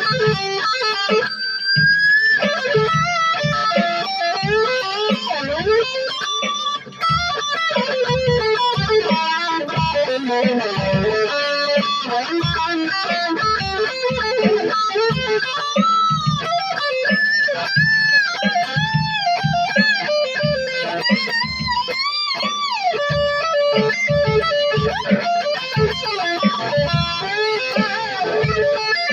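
Electric guitar with a Floyd Rose tremolo playing lead lines full of string bends and vibrato, over a steady low beat.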